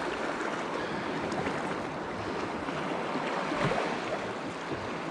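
Sea surf washing up on the shore, a steady hiss of breaking water.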